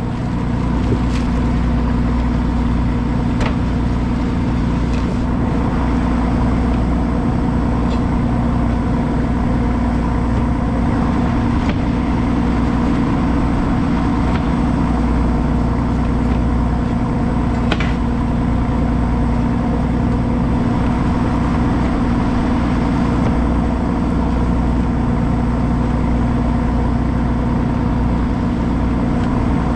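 Engine running steadily at a constant low hum, with a few sharp clicks or knocks at irregular intervals.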